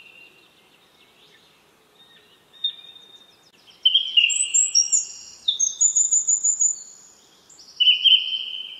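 Bird song: clear whistled notes and short rapid trills in separate phrases, the longest phrase about four seconds in.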